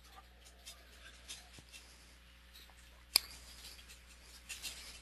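Faint room tone with scattered soft rustling and one sharp click about three seconds in.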